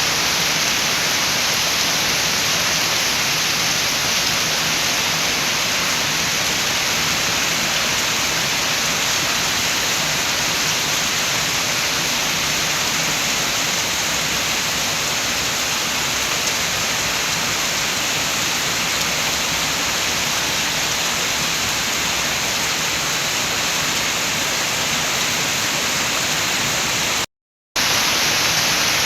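Steady rain with wind, a dense, even hiss. It cuts out to silence for about half a second near the end, then resumes.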